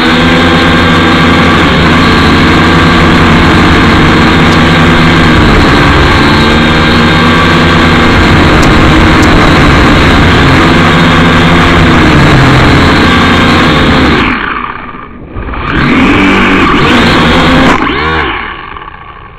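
A drone's electric motors and propellers running loud and close to the onboard microphone, their pitch wavering as the throttle changes. The sound dips sharply about fourteen seconds in and comes back, then winds down near the end as the drone comes down in the reeds and the motors stop.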